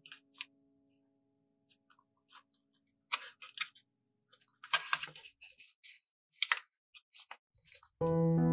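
A sheet of origami paper rustling and crackling as it is folded and creased by hand, in a few short bursts with quiet gaps between. Music starts just before the end.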